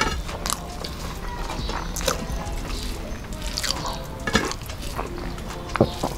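Wet eating sounds of people eating rice and curry by hand: fingers squelching rice with dal on the plates, chewing and lip smacks, with scattered short clicks.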